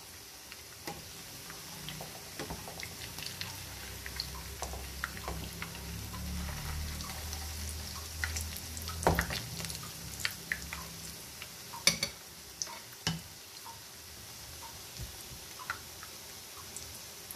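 Breaded potato cutlets shallow-frying in hot oil in a pan: a steady sizzle with many small pops and crackles. Around the middle a spatula knocks and scrapes against the pan as a cutlet is turned over, giving a few sharper clicks. A low hum runs through the first half.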